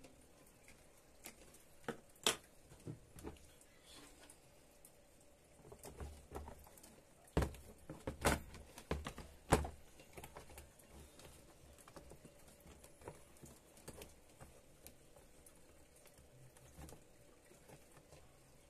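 Clicks and knocks of a cooktop's plastic housing being handled, closed and turned over on a wooden workbench, with a few sharp taps early and a cluster of louder knocks in the middle.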